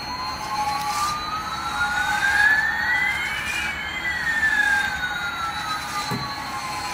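Electronic jet-engine sound effect from a toy Airbus A380 plane: two synthetic tones slide past each other, one rising and one falling over several seconds. A light knock comes near the end as the toy bumps into a toy car.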